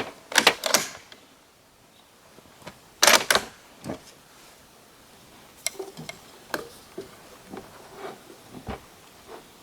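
Sharp clicks and knocks from handling a bolt-action .308 rifle at the bench. A few come about half a second in, the loudest cluster comes about three seconds in, and fainter scattered clicks follow.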